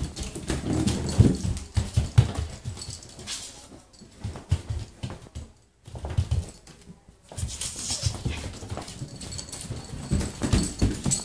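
Pet ferret scampering across a hardwood floor and carpeted stairs: irregular soft thumps and patters, with a quieter spell about six seconds in.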